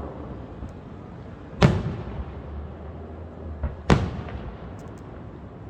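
Fireworks display: two loud aerial shell bursts about two seconds apart, the second with a smaller bang just before it, each booming bang trailing off in a rumble.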